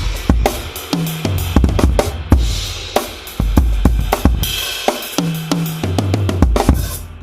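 Drum kit played in a groove with bass drum, snare and tom hits, and an 18-inch Paiste Color Sound 900 China cymbal crashing a couple of times, about two seconds in and again past the middle.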